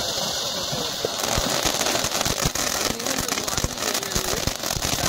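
Ground firework fountain spraying sparks with a steady hiss. From about a second in, a dense crackling of many small pops joins it as the crackling stars burst.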